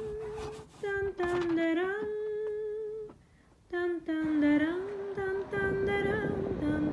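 A woman humming a slow tune in long held notes, with short breaks and a pause of about half a second a little after three seconds in.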